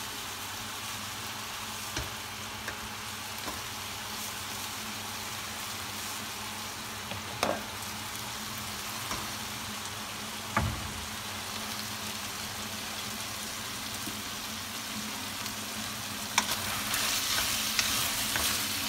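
Pieces of pargit (boneless chicken thigh) sizzling in a stainless steel frying pan, with a wooden spoon knocking against the pan now and then. From about three seconds before the end the stirring picks up, with more scraping and clicking.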